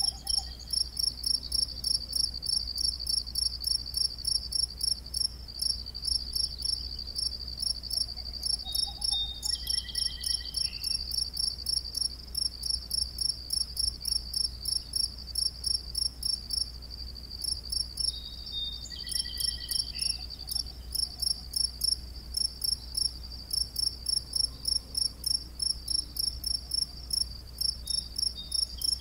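Crickets chirping steadily at dusk: a high-pitched pulsed chirp repeating about two to three times a second. Twice, about ten and nineteen seconds in, a brief falling call sounds over the chirping.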